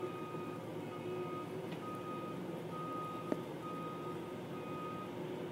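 Backup alarm on a rail ballast regulator beeping at one pitch, six half-second beeps about one a second, over the machine's engine running. A single sharp knock a little past three seconds in.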